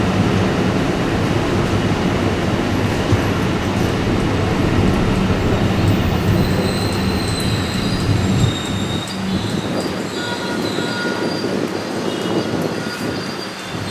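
Train running on steel rails through the station, with a dense rumble and a steady low hum. High-pitched wheel squeal comes in about six seconds in and again near the end. The rumble eases about eight and a half seconds in.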